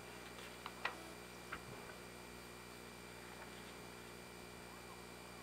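Faint steady hum, with a few soft clicks in the first two seconds.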